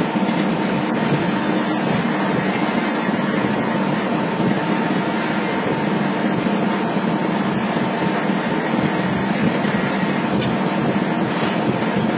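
Steady, loud industrial machinery drone, a continuous mechanical din with no distinct blows.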